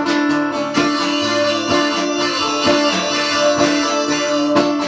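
Instrumental break in a folk song: a harmonica in a neck rack plays held notes over a rhythmically strummed acoustic guitar, with a violin bowing along.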